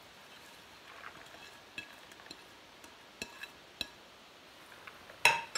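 Chopped coriander being scraped by hand off a plate into a bowl of minced meat, with a few light ticks and taps, then one sharp clatter of a dish near the end.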